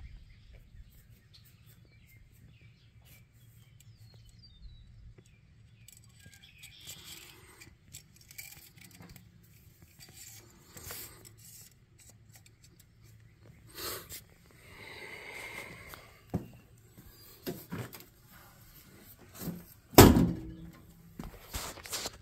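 Quiet handling noise with scattered knocks and clicks, a loud thump about two seconds before the end, and faint bird chirps.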